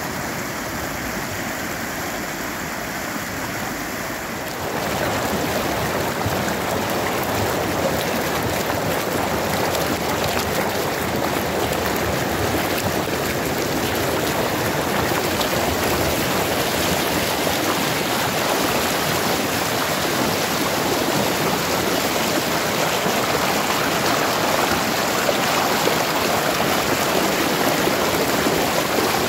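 Shallow mountain stream rushing and splashing over rocks, heard close to the water; it gets louder about five seconds in and runs on steadily.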